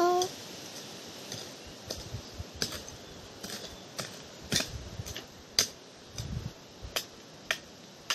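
Short-handled hand hoe (kudal) chopping into stony garden soil: a run of sharp strikes, about two a second, starting about two seconds in.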